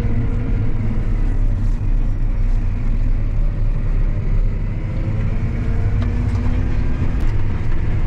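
Tractor engine running steadily while travelling on the road towing a grain cart, a constant low rumble.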